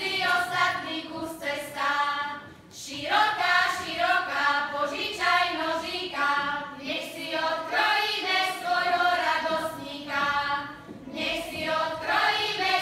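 Choir of women and girls singing a Slovak folk wedding song in several phrases, with short pauses for breath between them.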